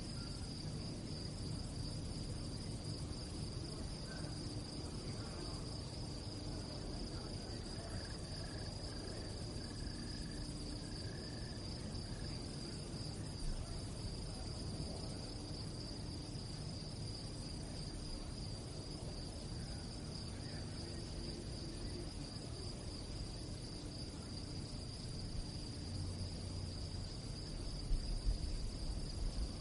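Crickets chirping at night in a steady, continuous high trill, over a low background rumble, with a few faint low thumps near the end.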